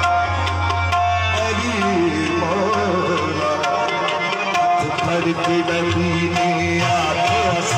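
Live qawwali music: tabla strokes under held harmonium notes and a singer's wavering, ornamented voice.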